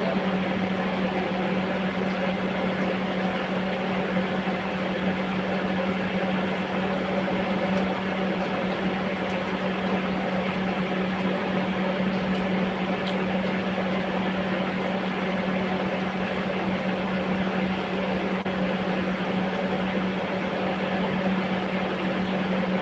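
A steady mechanical hum: an appliance motor running without a break, with a strong low drone and a constant hiss.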